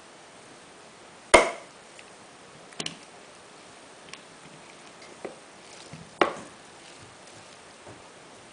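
Bars of handmade soap set down and shifted on an acrylic soap cutter, knocking against the plastic. There are two sharp knocks, about a second in and about six seconds in, with a quick double tap and a few lighter taps between.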